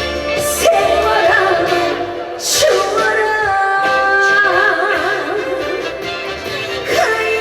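A woman singing a trot song with heavy vibrato on her held notes, over instrumental accompaniment.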